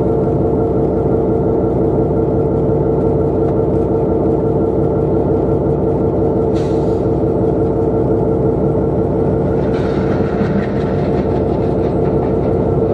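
Diesel locomotive engine running with a loud, steady drone and a constant hum. About ten seconds in, a train passing on the next track adds a rushing noise.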